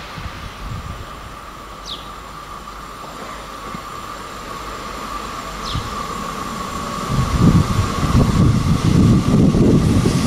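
ČD Regionova diesel multiple unit (class 814/914) approaching and running past, with a steady high whine throughout. The rumble of its wheels on the rails grows much louder from about seven seconds in as it draws close.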